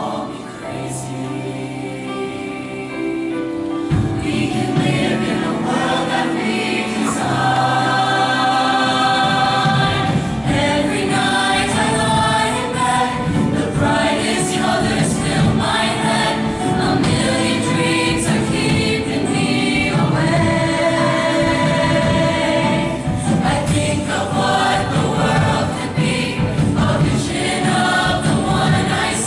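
Mixed show choir singing in full harmony with live band accompaniment; the music swells and becomes fuller about four seconds in.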